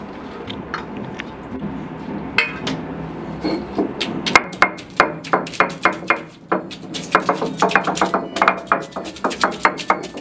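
Stone roller on a flat grinding stone crushing peeled garlic cloves: sharp stone-on-stone knocks, a few scattered at first, then coming several a second from about four seconds in.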